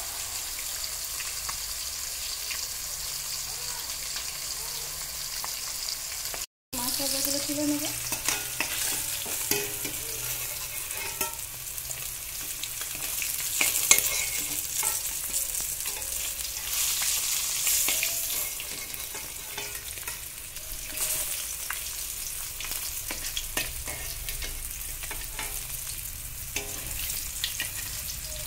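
Pieces of fish sizzling as they fry in hot oil in a metal kadai, with a metal spatula scraping and clicking against the pan as the pieces are turned and lifted out. The sound drops out for a moment about six seconds in.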